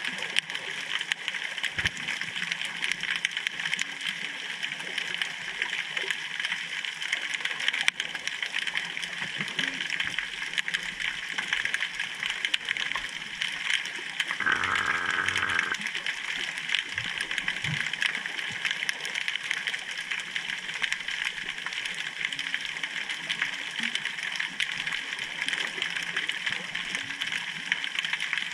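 Underwater ambience picked up by a submerged GoPro: a steady hiss thick with fine crackling clicks, with a brief muffled sound about halfway through.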